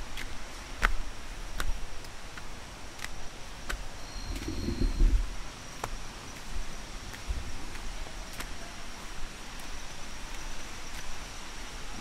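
Footsteps along a forest trail, a sharp step click every half second or so early on and more scattered later, over a faint steady high insect whine and outdoor ambience. A short low rumble about four seconds in.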